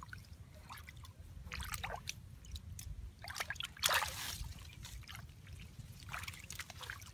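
A hand splashing and scooping in shallow muddy water, several short splashes with the loudest about four seconds in, over a low steady rumble.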